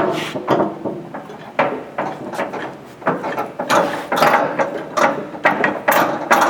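Vertical cardboard baler's door being closed and latched: a run of irregular metal clanks and ratcheting clicks, several a second.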